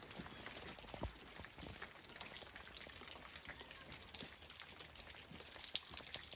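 A hiker's footsteps going down a woodland trail: faint, irregular light crackles and taps over a soft hiss.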